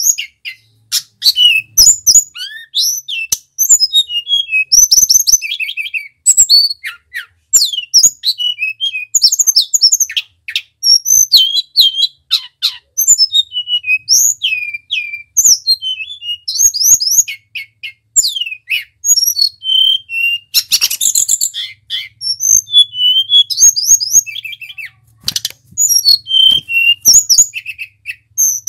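Male hill blue flycatcher (tledekan) singing: a long run of fast, varied whistled phrases of rising and falling slides and trills, broken by short pauses, with a few sharp clicks between phrases.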